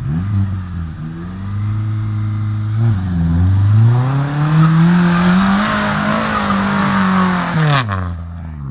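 Small off-road 4x4's engine revving hard as it climbs a muddy bank and passes close by. The pitch dips about three seconds in, rises and holds high, then drops sharply near the end, just after a sharp knock.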